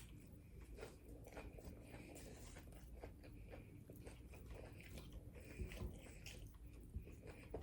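A person chewing a mouthful of taco close to the microphone: faint, irregular small clicks and mouth sounds of chewing.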